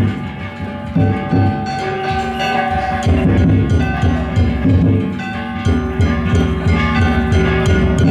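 Danjiri float hayashi: a big taiko drum beaten in a steady rhythm, with metal kane gongs struck and ringing over it.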